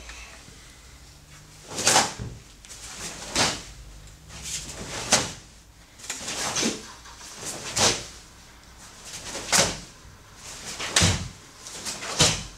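A karateka's gi snapping sharply with each block and punch of a Shotokan kata: about eight snaps, roughly one every second and a half.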